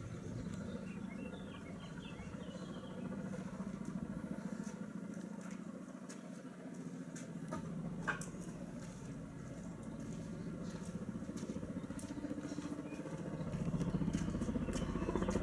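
Coaxial-rotor Kamov firefighting helicopter flying with a water bucket slung on a long line, its rotors beating in a steady fast pulse that grows louder near the end as it comes closer.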